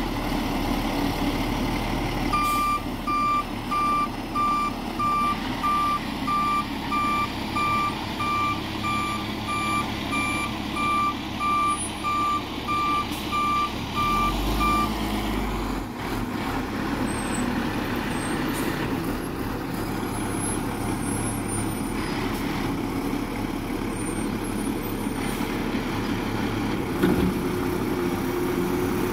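Front-loader garbage truck's diesel engine running while it reverses, its reversing alarm beeping steadily at about one and a half beeps a second. The beeping stops about halfway through and the engine runs on, with a single knock near the end.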